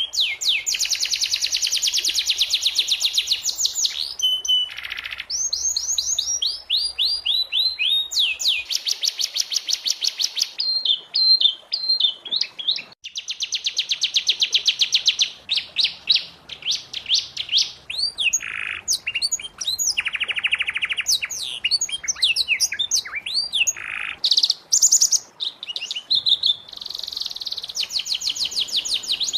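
Domestic canary singing a long, continuous song of fast trills and rolls, with quick chirps and up-and-down whistled glides between them.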